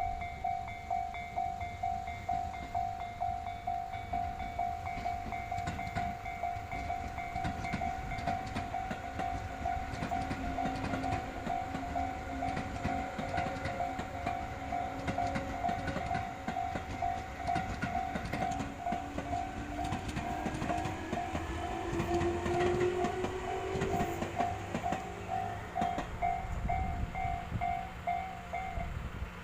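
Japanese level-crossing alarm ringing in steady repeated tones while a train runs over the crossing, its wheels clacking over the rail joints. In the second half the train's motor whine rises in pitch as it speeds up, and the crossing alarm stops just before the end.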